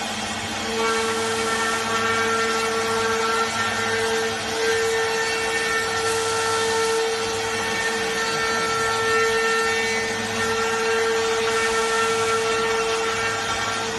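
Remax-1385 CNC router at work, its spindle giving a steady whine over constant machine noise. The whine comes in under a second in and holds, while a lower hum drops out about halfway through.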